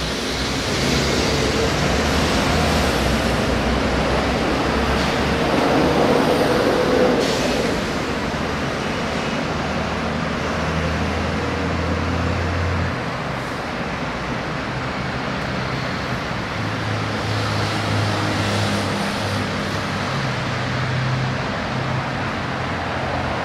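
Street traffic: vehicle engines running and cars passing, a steady road noise with a low engine hum that comes and goes. It is loudest about six to seven seconds in.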